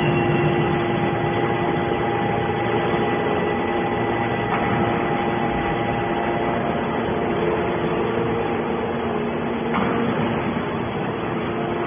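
Hydraulic scrap metal baler running, a steady machine hum with a constant whine from its hydraulic power unit.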